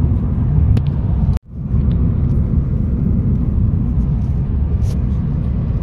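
Steady low rumble of a car on the road, with a split-second dropout about one and a half seconds in.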